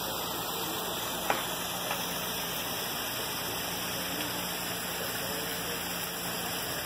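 Steady rushing background noise with a faint low hum underneath and a single light click about a second in.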